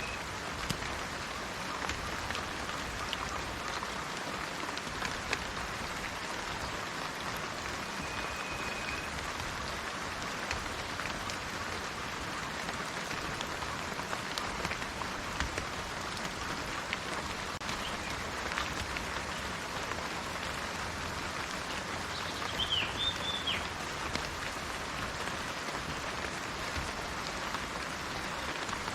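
Steady rain hissing, with scattered drops tapping close by. A bird gives one short whistle about eight seconds in and a few quick chirps about two-thirds of the way through.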